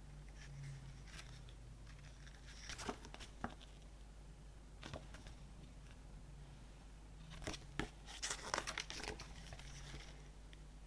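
Handling of a CD album and its packaging: two short bursts of crinkling and rustling with sharp clicks, and a single click between them.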